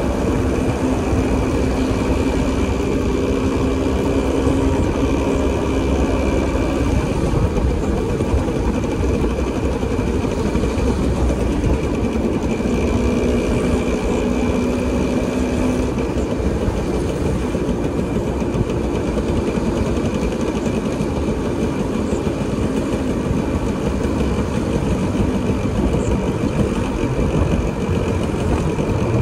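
Motor vehicle engine running amid steady road noise, its hum shifting in pitch a few times.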